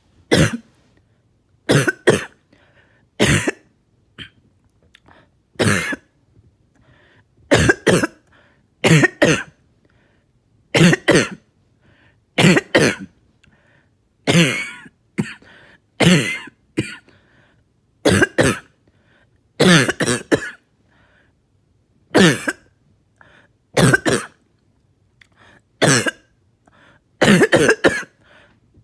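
A person's coughing fit: short, loud coughs, singly and in quick pairs, every one to two seconds. It is a productive cough, bringing up really thick mucus that the uploader says the medication is breaking up.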